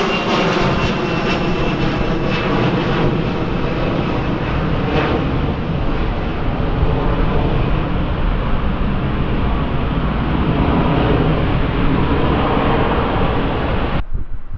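An airliner's engines passing close and loud, with a high steady whine at first and the engine pitch sliding slowly down as the treble fades away. Near the end it cuts abruptly to wind on the microphone.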